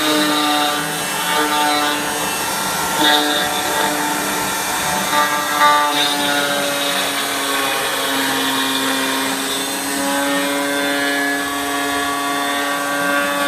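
CNC router spindle whining steadily as its bit carves star shapes into painted wood boards, the pitch dipping and then rising again partway through as the cutting load changes.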